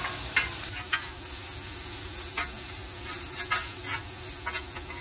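Thin-sliced ribeye with peppers and onions sizzling on a hot gas griddle, a steady hiss. Metal tongs click and scrape against the griddle plate now and then as the meat is turned.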